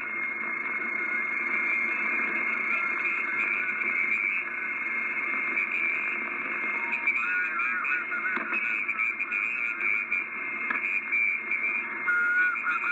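Kenwood R-5000 shortwave receiver on the 40 m band in LSB, giving steady band noise and static between transmissions. A thin, steady whistle runs underneath, and faint, garbled voice fragments from weak stations come through around the middle and near the end.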